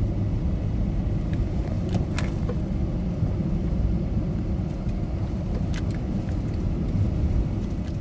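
Car driving up a winding road, heard from inside the cabin: a steady low rumble of engine and tyre noise, with a couple of faint clicks.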